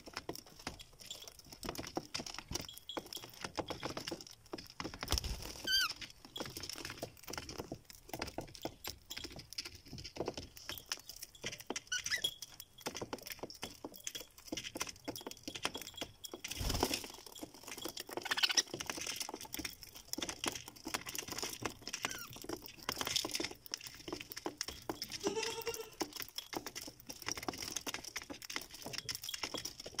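Budgerigars pecking and husking seed on a board cage floor: many small, irregular clicks and taps, with a few short chirps now and then.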